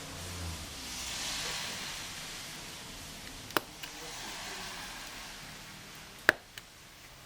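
Cars passing on a rain-soaked road, their tyres hissing and splashing, swelling up and fading away twice. Two sharp clicks cut through, the louder one near the end.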